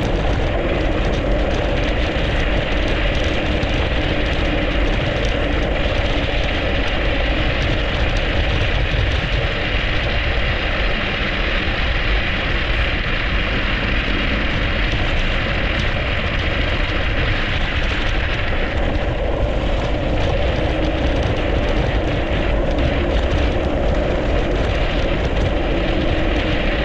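Steady rush of wind on the microphone and bicycle tyres rolling over packed snow and ice on a fast downhill ride.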